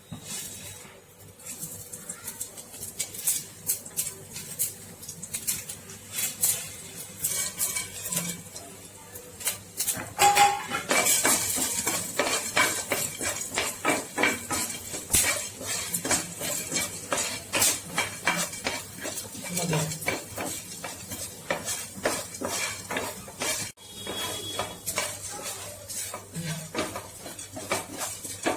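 A utensil scraping and clinking against a pan as whole spices are stirred while roasting in coconut oil: frequent short scrapes and taps, busier and louder from about ten seconds in.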